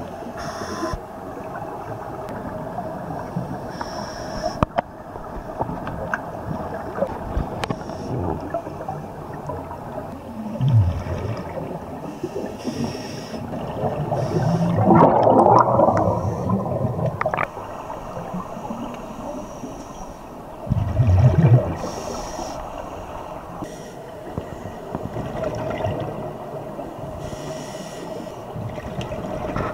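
Underwater sound of scuba diving: exhaled bubbles from a regulator burst out and rumble every few seconds over a steady underwater hum, the loudest burst about halfway through.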